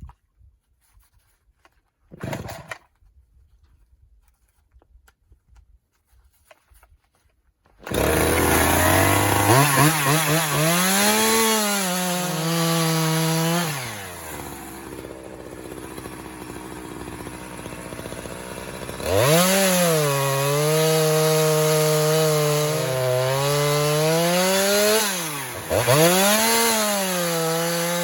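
Chainsaw starting up about eight seconds in and running at high revs, dropping back to idle for a few seconds, then revved up again with a brief dip near the end.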